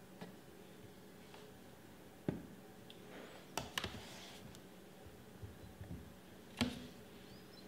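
A wooden wire soap cutter and soap being handled on its plastic board: a few light knocks and clicks, the loudest near the end, with a brief soft sliding sound in the middle.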